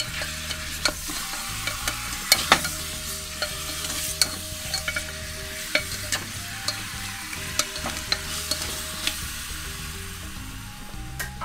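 Beef tail pieces sizzling in hot sunflower oil in an open Afghan kazan, being browned before stewing. A slotted spatula stirs them, with frequent sharp clicks and knocks as it strikes the pot's metal wall.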